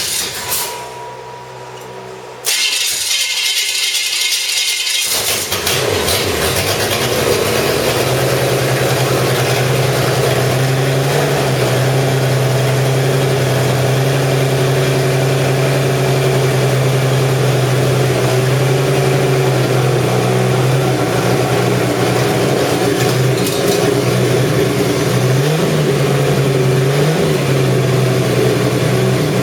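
Chevy 250 inline-six engine on an engine stand, cranking, then catching about five seconds in and running steadily. Its pitch rises briefly twice near the end, as if revved.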